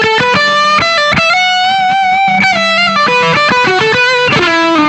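Electric guitar played through a Vertex Dynamic Distortion pedal with a boost engaged. It plays a high-gain lead line of single sustained notes, with bends and vibrato near the end. The notes sing with long sustain from the pedal's built-in compression.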